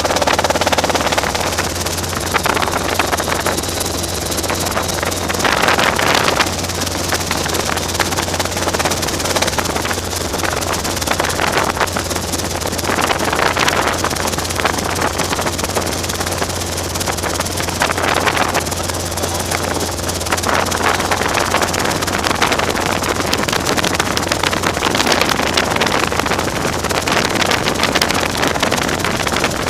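Robinson R22 helicopter running, heard from inside the cabin: a steady engine and rotor drone with a constant low hum.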